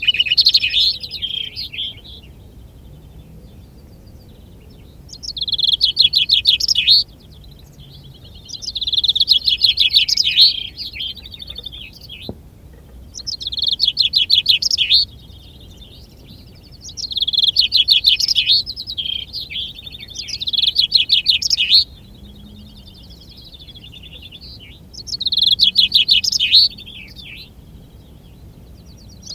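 Male common chaffinch singing its contest song over and over, a quick run of rapid notes ending in a flourish, each song about two seconds long and coming about every four seconds.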